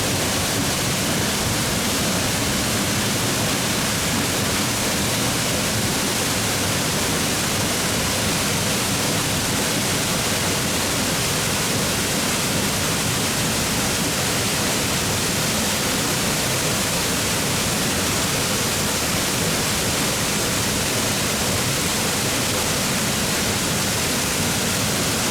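A small plunge waterfall pouring straight down onto bedrock, making a steady, even rush of falling water.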